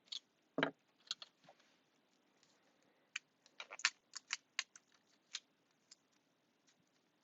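Scissors snipping through tape in short, irregular cuts, with a quick run of snips about three and a half to five seconds in.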